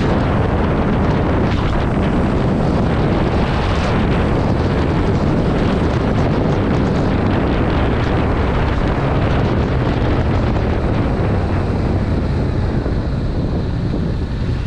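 Yamaha MT-07's 689 cc parallel-twin engine running on the move through its stock exhaust, mixed with heavy wind rush on the microphone.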